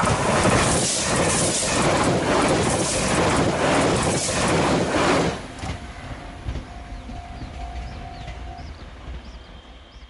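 JR Shikoku 8600 series electric limited-express train passing close at speed, its wheels clattering rhythmically over the rail joints for about five seconds, then dropping off suddenly and fading as it recedes. A level-crossing warning bell rings faintly once the train has gone by.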